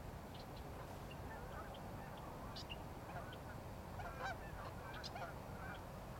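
A flock of feeding geese calling softly, with scattered short honks and clucks that come thickest about four to five seconds in, over a low steady background rumble.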